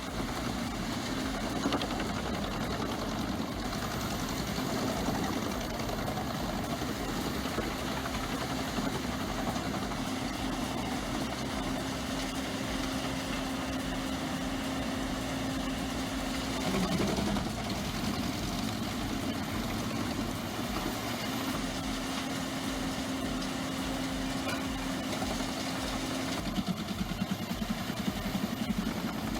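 Large engine of a heavy forestry machine running steadily with a constant hum. Its pitch drops briefly about seventeen seconds in and shifts again near the end.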